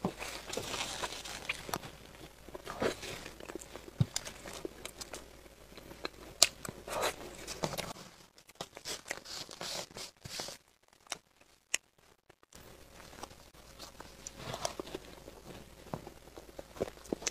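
Close-up eating and handling sounds: a metal spoon scraping and clicking against clear plastic dessert cups, with the plastic crinkling as a cup is handled. There is a quieter stretch in the middle with only a few clicks.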